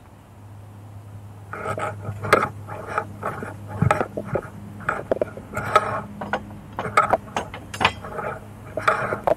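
Narrowboat engine running with a steady low hum. Over it, from about a second and a half in, comes a louder run of short squawk-like sounds, about three a second, with a few sharp clicks.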